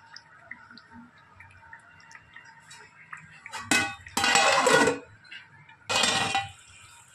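Steel cookware being handled. After a few quiet seconds come two loud spells of metal clattering and scraping, the first about a second long and the second shorter.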